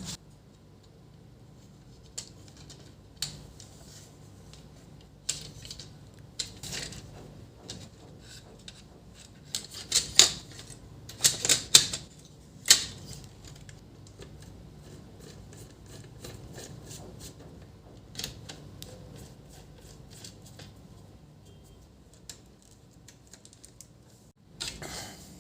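Irregular clicks, knocks and rattles of plastic printer parts being handled and worked on the laser printer's fuser assembly, with a louder cluster of knocks and rustles about ten to thirteen seconds in.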